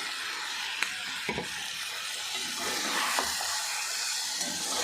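Chicken liver, onion, egg and cashews frying in hot oil in a pan, a steady sizzle, with a few light clicks of the stirring utensil against the pan about a second in and around three seconds.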